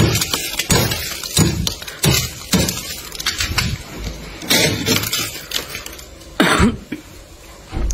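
Metal scraper scraping packed frost off the inside wall of a freezer. The first few seconds hold a run of short strokes, about one and a half a second, followed by a few slower, separate strokes, the loudest one near the end.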